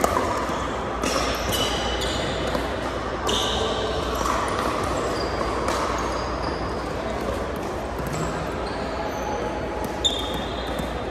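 Pickleball rally on a hardwood gym court: sharp pops of paddles striking the plastic ball and short squeaks of shoes on the floor, over the steady din of a large hall.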